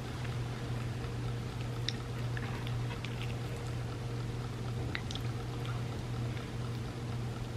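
Close-miked chewing and soft, wet eating sounds from a creamy chocolate trifle, with a few faint clicks, over a steady low hum.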